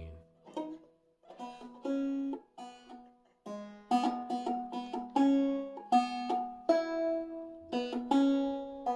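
Five-string banjo played clawhammer style, tuned down to an open E tuning (eBEG#B), picking out a melody in plucked, ringing notes. A few soft notes at first, then from about a second and a half in a steady run of notes.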